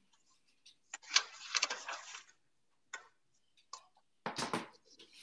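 Handling noises as a baking sheet of cookie dough is taken from the freezer: clicks and a stretch of rustling clatter, then a thump about four seconds in as the sheet is set down on the counter.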